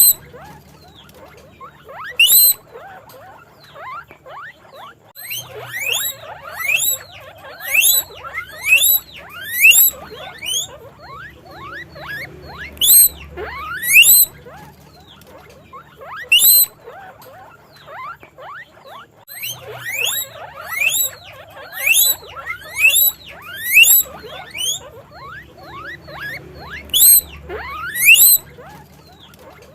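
Guinea pig wheeking: a long string of loud, sharply rising squeals, about one a second, in runs with short pauses between.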